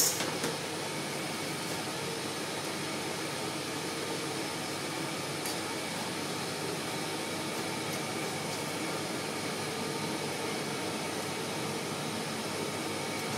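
Steady, even background hiss, with a faint click about five and a half seconds in.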